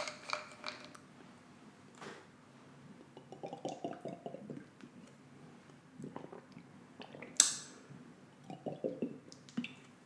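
A person drinking bottled water in close-up, with quiet gulps and wet swallowing clicks in two runs and a short sharp noise about seven seconds in.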